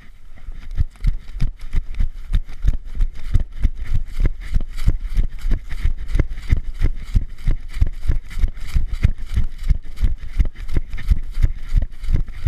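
A person running, heavy footfalls thudding at about three a second in a steady rhythm.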